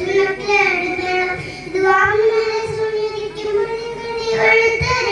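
A child singing in a high voice: a few short sung notes, then one long held note that steps up slightly about two seconds in.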